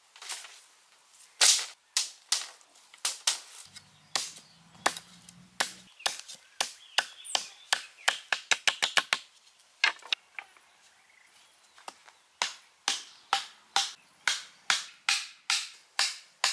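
Machete blade chopping into wooden stakes to sharpen their points, sharp separate blows that come irregularly and then quicken into a rapid run about halfway through. Later a steady run of knocks, about two a second, as a stake is pounded into the ground.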